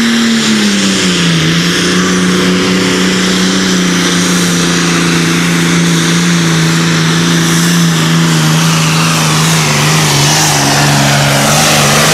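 John Deere Super Farm pulling tractor's turbocharged diesel running at full throttle under load as it pulls the sled. The engine note drops a little about a second in and then holds steady, with a high whine rising near the end.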